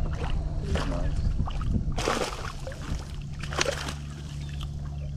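A boat's motor humming steadily, with water splashing and sloshing a few times over it.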